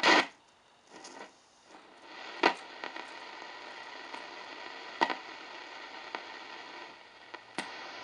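R-390A tube communications receiver being tuned off a broadcast station: a short loud burst, a moment of near quiet, then steady static hiss from its speaker with a faint steady whistle. A few sharp clicks come through the hiss, three in all, spaced about two and a half seconds apart.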